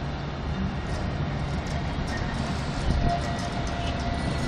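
A tram passing close by on a curved section of track, with a steady low rumble. A thin steady whine joins in about three seconds in.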